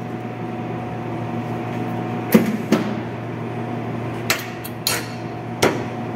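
Thin rolled sheet-steel duct segments knocking and clinking against each other and the steel table as they are handled: about five sharp metallic knocks in the second half, over a steady electrical hum.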